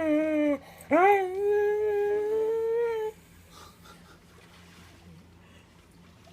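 Dog whining in drawn-out, almost talking calls, begging for food. One call slides down in pitch and breaks off about half a second in. A second call starts with a sharp upward swoop and holds steady for about two seconds before stopping.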